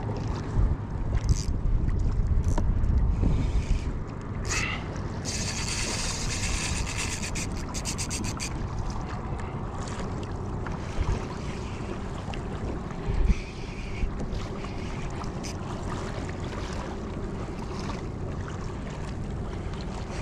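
Wind buffeting the microphone and water noise around a kayak while a hooked fish is fought on a spinning reel, with a few knocks of handling. From about five to eight seconds in comes a fast ticking rasp from the reel.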